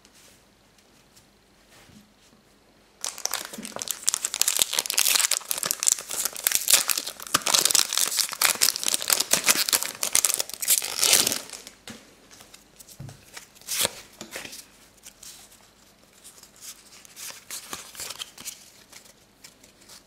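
Pokémon trading card booster pack wrapper being crinkled and torn open by hand. The dense crackling starts about three seconds in and lasts about eight seconds, then gives way to lighter rustling and clicks as the cards are handled.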